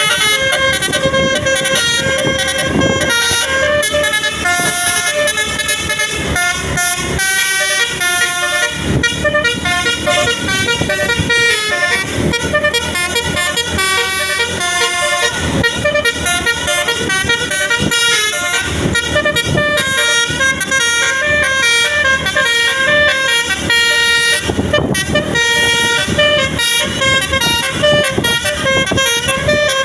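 Tour bus 'telolet' multi-tone horn playing a tune, its notes stepping up and down in pitch, loud and almost without a break.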